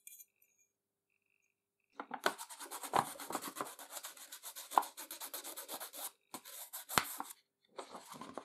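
A red crayon is rubbed quickly back and forth over a sheet of paper laid on the grinder's gearbox face, in scratchy strokes starting about two seconds in, with brief pauses near the end. It is taking a rubbing of the gearbox face's outline and bolt holes.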